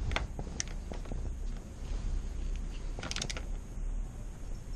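Sharp mechanical clicks from work on a motorcycle's rear brake: two near the start, then a quick cluster of several about three seconds in, over a low steady rumble.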